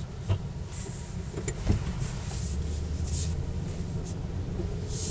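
5.7-litre Chevrolet V8 in a Suburban running with a steady low rumble, with a couple of short knocks in the first two seconds.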